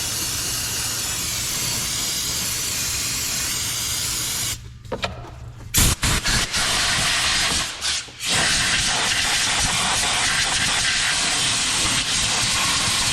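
A pressurised spray hissing steadily as grime is cleaned off around a brake booster and master cylinder. It stops about four and a half seconds in, a few sharp knocks follow, and the hiss starts again a little past the middle and runs on.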